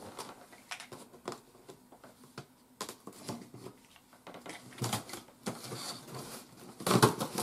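Knife cutting through the packing tape along the top of a cardboard box, with scattered scratching clicks and cardboard rustles. The cardboard noises get louder about five seconds in and again near the end.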